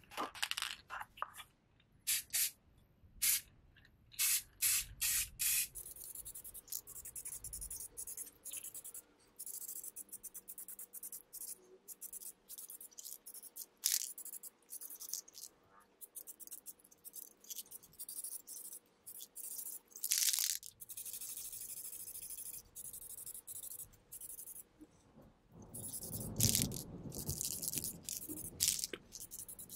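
Aerosol spray can of gloss blue paint-and-primer hissing as it sprays, in many short bursts and a few longer passes.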